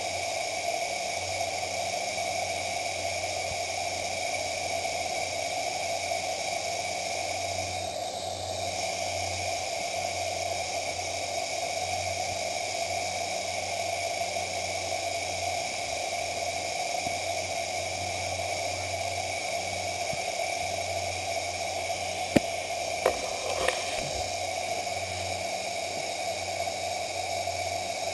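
Steady, even hiss with a low hum, the unchanging noise of a small action camera's microphone. Three short sharp knocks come close together about three-quarters of the way through.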